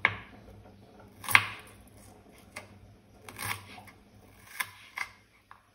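Knife slicing small onions (shallots) on a wooden cutting board: about half a dozen separate, irregular knocks of the blade on the board, the loudest about a second and a half in.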